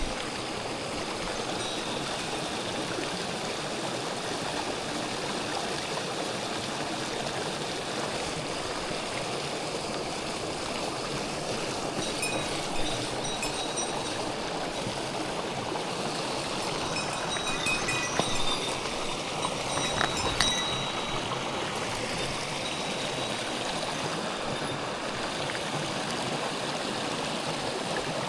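Mountain stream water rushing steadily over rocks, with a few brief clicks and short high notes partway through.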